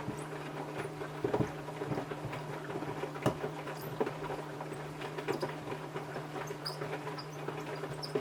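Samsung front-loading washing machine washing a pair of trainers: a steady low motor hum under irregular knocks and patter as the shoes tumble and thump around in the drum.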